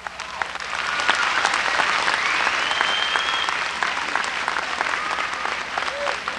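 Arena audience applauding and cheering, the clapping swelling about a second in, with one rising, whistling tone over it about halfway through.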